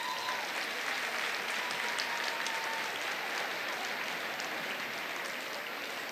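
Audience applauding, swelling up at the start and holding steady throughout.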